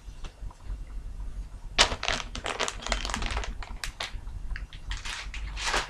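Rustling and crinkling of a cross-stitch fabric piece and its papers being handled and folded, in irregular bursts with small clicks, starting about two seconds in and lasting until near the end.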